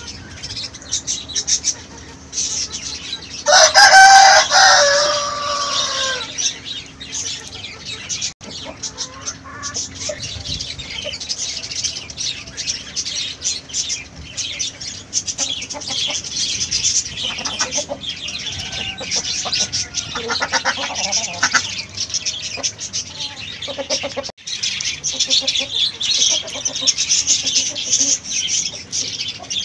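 Indian country (nattu) rooster crowing once, a long call of about two and a half seconds starting about three and a half seconds in. Fainter chicken clucks and calls follow later, over a steady high hiss.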